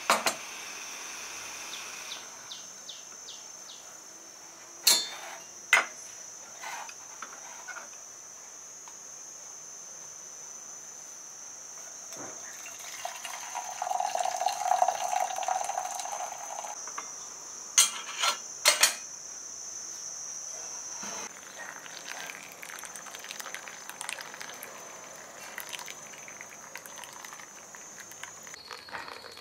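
Water poured from a metal pot into a metal gooseneck kettle, a splashing pour for about four seconds near the middle, with a few sharp metallic clinks of the pot and kettle being handled and set down. Later a thin stream from the gooseneck spout trickles onto coffee grounds in a paper pour-over filter. A steady high-pitched whine runs underneath.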